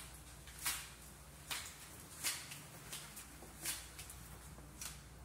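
Footsteps scuffing on a tiled floor: five short, soft scuffs at uneven intervals.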